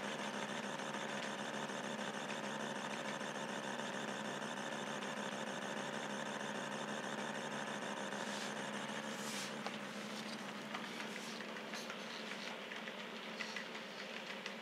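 Model train running on layout track: a steady hum and rumble of the motor and of the box cars' wheels rolling past. About ten seconds in it turns a little quieter, with light irregular clicks from the wheels on the track.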